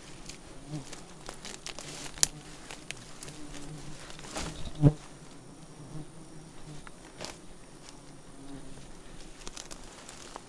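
Honey bees buzzing close by, their hum swelling and fading as they fly past, over rustling and handling clicks at a wild nest. A sharp click comes about two seconds in, and a louder knock just before five seconds.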